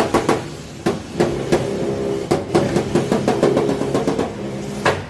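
Irregular sharp knocks and taps of dent repair on the sheet-metal bed side of a Dodge Ram 1500, over a steady pitched drone.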